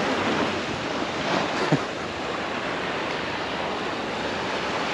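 Surf washing onto the beach as a steady rushing noise, with wind buffeting the microphone. A brief low falling blip just under two seconds in.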